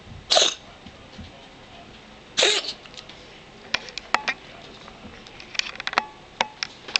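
A cat sneezing twice, about two seconds apart, followed by a run of short, sharp clicks.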